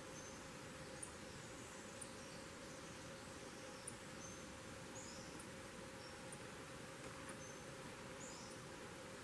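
Faint forest ambience: a steady soft hiss with small birds giving high, thin calls, brief chips about once a second and now and then a short down-slurred note.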